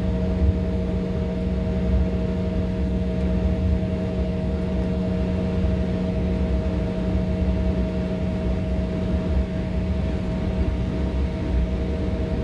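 Cabin noise inside an Embraer E175 taxiing: a steady hum from its idling GE CF34 turbofans over a low, uneven rumble, with no change in power.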